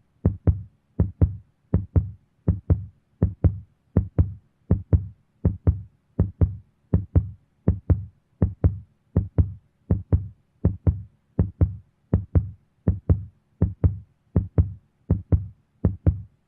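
Heartbeat sound effect: a steady double thump, lub-dub, repeating about 80 times a minute, each beat low and short.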